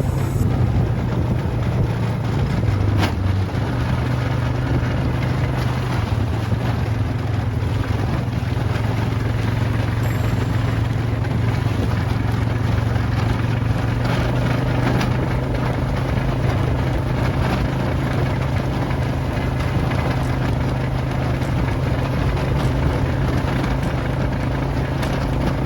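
Vehicle engine running steadily with an unchanging low hum.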